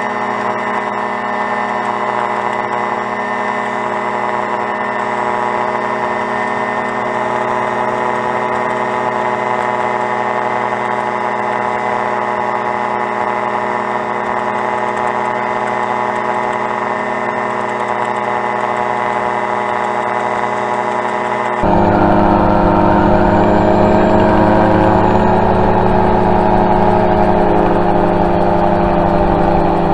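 Rotax 503 two-cylinder two-stroke engine and pusher propeller of an autogyro running steadily at cruise power in flight. About 22 seconds in the sound abruptly grows louder and fuller.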